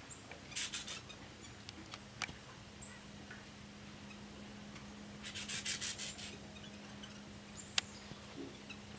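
Small birds at a suet feeder: two short bursts of rapid chattering, each about a second long, with a few high thin call notes and a couple of sharp clicks between them.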